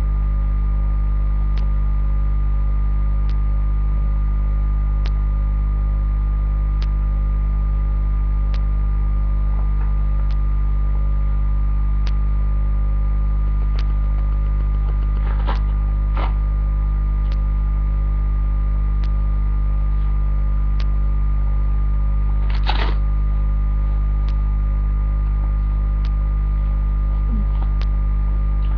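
Steady, loud electrical mains hum with a faint tick about every second and a half to two seconds, and a few brief clicks or scrapes two-thirds of the way through.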